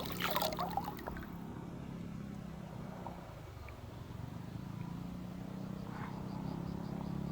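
Steady low engine drone, with a short splashy clatter in the first second.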